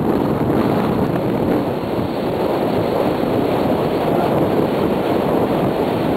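Regal 4060 cruiser running on the water, heard as a steady rush of wind on the microphone and churning water.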